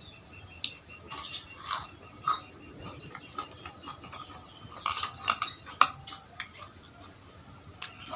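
Eating noodle soup: utensils clicking and clinking against a bowl in scattered short strokes, with chewing between them. One sharper clink comes about six seconds in.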